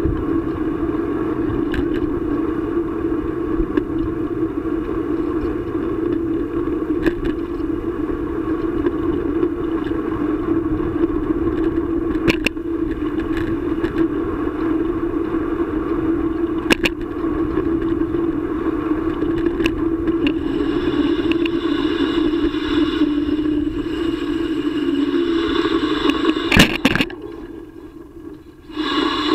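Bicycle riding along a paved path, heard through a bike-mounted camera: a steady hum of rolling tyres and frame, broken by a few sharp knocks from bumps. The sound falls away as the bike slows to a stop near the end.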